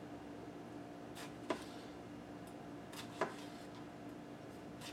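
Damascus-steel chef's knife slicing through a tomato, twice: each stroke is a faint slicing hiss ending in a sharp tap of the blade on a plastic cutting board, about a second and a half apart.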